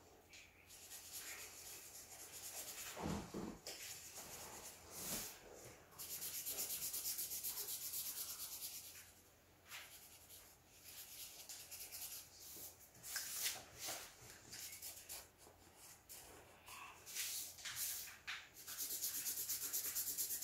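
Black Sharpie marker scribbling rapidly back and forth on paper over cardboard, colouring in a solid area. The strokes come in stretches, with a soft knock about three seconds in.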